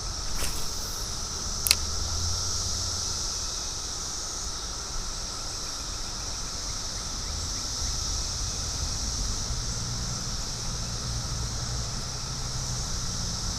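Steady high-pitched chorus of insects such as crickets, over a low steady rush, with one sharp click just under two seconds in.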